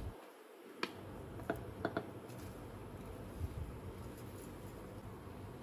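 A few light clicks and a soft knock of wooden utensils against an enamel saucepan as cubes are tipped onto simmering instant noodles, over a low steady background.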